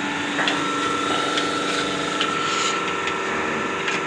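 Portable bucket milking machine's vacuum pump running steadily, with a light regular click about once a second.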